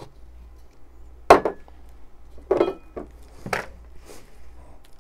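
A clear glass canister body and its packaging being handled: a sharp knock about a second in, then a few lighter knocks and clinks, some with a short glassy ring.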